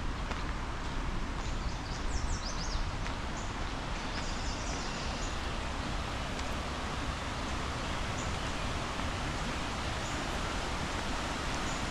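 Outdoor park ambience: a steady rushing noise with a low rumble underneath, and a few short, high bird chirps between about two and five seconds in.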